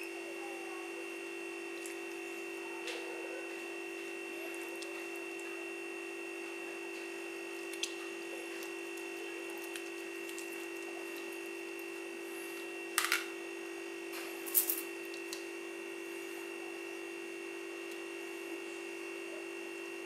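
A steady, even hum from a small motor or electrical appliance, with a few short clicks and taps from bamboo skewers and meat being handled in a bowl; two louder clicks come about two-thirds of the way through.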